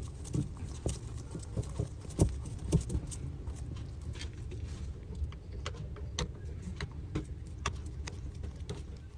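Irregular light clicks and knocks of things being handled, a few a second, over a steady low rumble.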